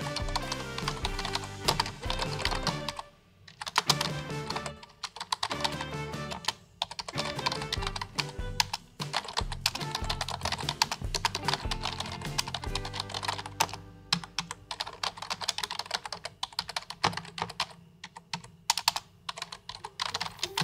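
Typing on a computer keyboard: quick runs of key clicks with short pauses between bursts, over background music.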